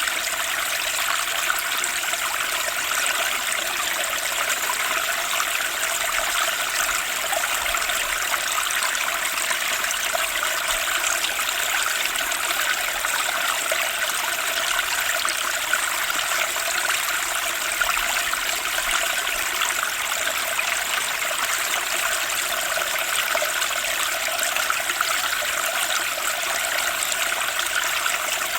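A fast-flowing spring stream rushing and splashing over rocks, a steady unbroken turbulent water sound that is mostly hiss and splash with little low rumble.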